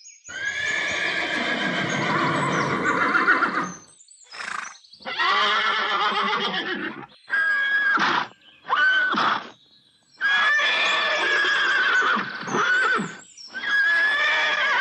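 Horse neighing: a string of whinnies, one long call followed by several shorter ones with brief gaps between them.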